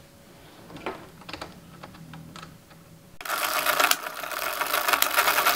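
Addi Express circular knitting machine being hand-cranked, starting a little past halfway: a loud, fast, dense clatter as the needles run round knitting a row. Before it, a few light clicks and taps.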